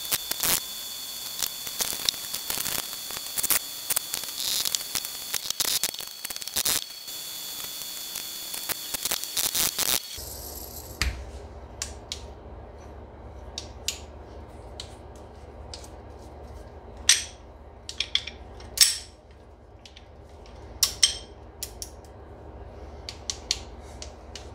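Scattered metallic clicks and clinks of parts and hand tools being handled over a steady hum. For about the first ten seconds a hissy background with a steady high whine sits under dense clicking, then it cuts off abruptly, leaving a low hum and sparser clinks.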